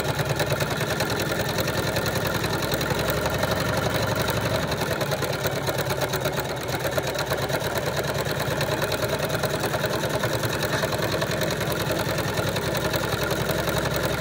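Electric sewing machine running continuously at speed, its needle stitching in a fast, even rhythm.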